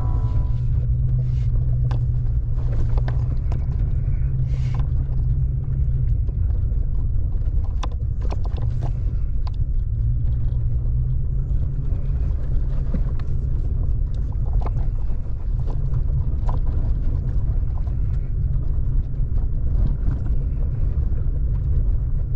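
A vehicle driving on a dirt forest road: steady low engine and road rumble with scattered clicks and rattles throughout.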